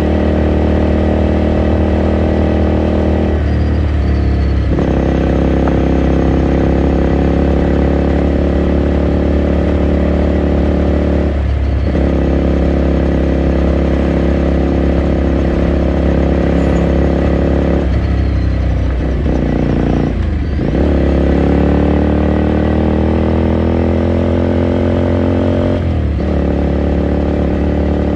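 Onboard sound of a 2018 Ducati Scrambler Sixty2's air-cooled 399 cc L-twin engine under way, running steadily with about five brief breaks in its note at gear changes. In the later part, the pitch climbs slowly as the bike speeds up before the next change.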